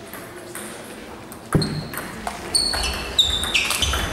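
Table tennis doubles rally: the ball ticking off bats and table, with a sharp louder knock about a second and a half in. Several short high squeaks of players' shoes on the hall floor follow as they move around the table.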